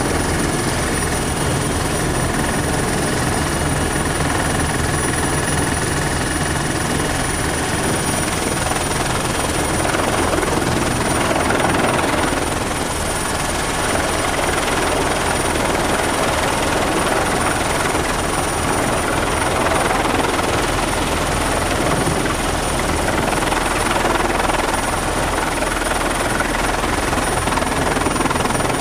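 Eurocopter EC120 Colibri's Turbomeca Arrius turboshaft and rotors running, heard from inside the cabin: a dense, steady rotor and engine noise with a thin, steady high turbine whine over it.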